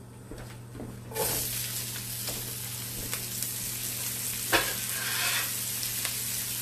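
Chopped green cabbage hitting hot melted margarine in a skillet, sizzling from about a second in as it starts to fry. One sharp knock a little past halfway.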